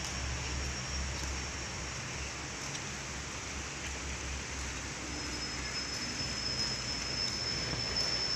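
Steady forest ambience with a low rumble on the phone microphone and a thin, steady, high-pitched insect whine that grows louder from about five seconds in.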